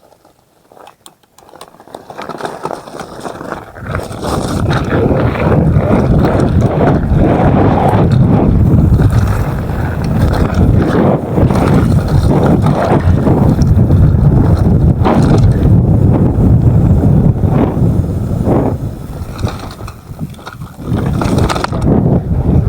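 Wind buffeting the microphone and the rattle and knocks of a mountain bike riding over a rough dirt trail. It builds over the first few seconds, stays loud, and eases briefly near the end before rising again.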